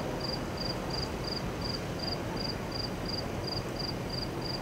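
An insect chirping in an even rhythm, about two and a half short high-pitched chirps a second, over a low steady background rumble.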